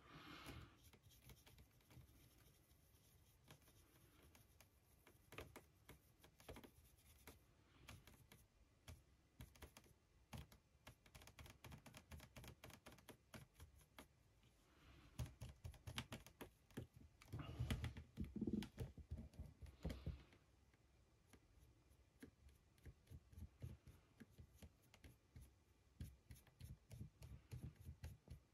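Faint scattered clicks and scratching of a paintbrush working over a 3D-printed figure as it is held and turned by hand, with a louder stretch of handling noise a little past the middle.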